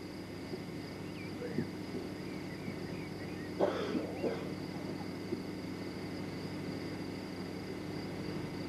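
Quiet outdoor background with a steady hum, a few faint high chirps in the first few seconds, and a brief faint sound about four seconds in.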